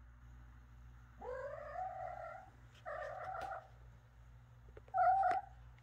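Kitten meowing three times: a longer call rising at its start, a shorter one, and a brief loudest one about five seconds in.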